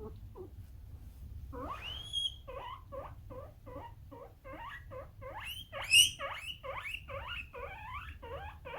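Guinea pig wheeking. A long rising squeal comes about two seconds in. It is followed by a rapid run of short rising squeaks, about three a second, with one louder squeak about six seconds in.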